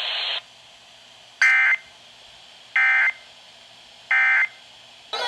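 Emergency Alert System end-of-message signal: three short bursts of warbling SAME digital data tones, about 1.3 seconds apart, closing the flash flood warning broadcast. A hiss of static cuts off just before the first burst.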